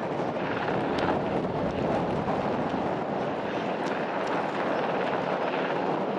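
Sikorsky S-92 helicopter hovering, a steady rotor and turbine din mixed with wind on the microphone and the wash of surf.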